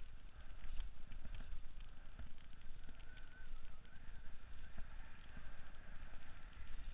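Mountain bike descending a rough downhill trail, heard from a helmet-mounted camera: low wind rumble on the microphone with a run of irregular knocks and rattles from the bike over the ground.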